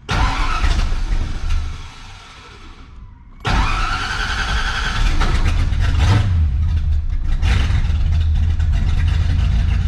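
Fox-body Mustang engine being started: a first loud burst drops away after about a second and a half, then about three and a half seconds in it starts up again and runs on steadily at idle. A new fuel pump has just been fitted, replacing one that was dropping fuel pressure.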